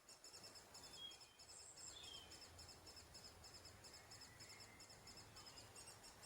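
Faint outdoor ambience of small birds: a thin, high chirping repeated evenly several times a second, with a few short falling whistled notes about a second or two in.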